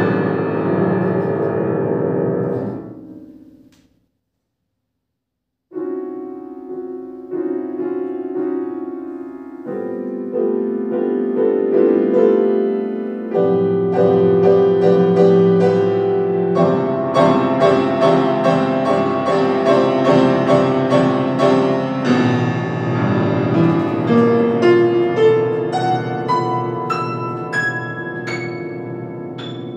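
Solo grand piano: loud low chords die away into a silence of almost two seconds. The playing then resumes softly and builds into dense, loud passages, and near the end it thins to single high notes climbing upward.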